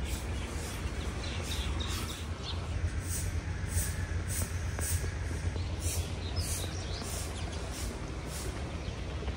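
Rural outdoor ambience: a steady low rumble with birds chirping over it, short high calls repeating about once or twice a second.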